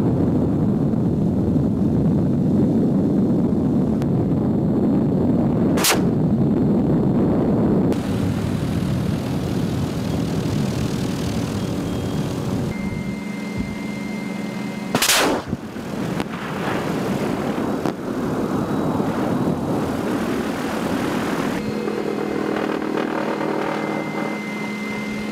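MD 530F Cayuse Warrior light attack helicopter in flight firing its weapons: a dense rattling racket for the first several seconds, two sharp loud cracks about 6 and 15 seconds in, and the helicopter's steady engine and rotor hum in the later part.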